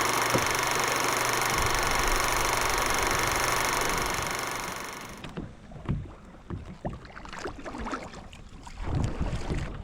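A steady rushing hiss for about five seconds, then it cuts off abruptly and gives way to irregular splashes and sloshing of kayak paddles dipping into calm water.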